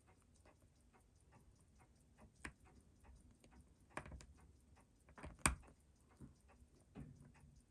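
Faint, fast, steady ticking, with a few louder sharp clicks of small metal tools on a watch case as the chronograph pushers are worked out. The loudest click comes about five and a half seconds in.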